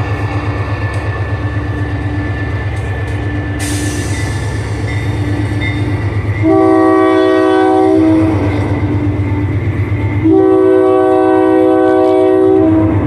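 Freight train diesel locomotive running with a steady low drone, then sounding its multi-note horn in two long blasts, one about six and a half seconds in and another about ten seconds in.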